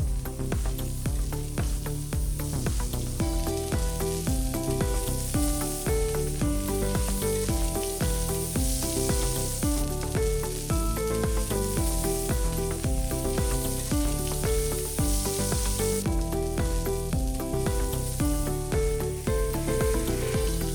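Egg omelette sizzling as it fries in a pan, a high hiss that swells and eases, under background music with a steady beat.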